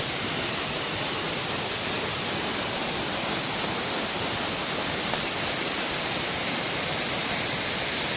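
Waterfall close by: falling water making a steady, even rushing hiss.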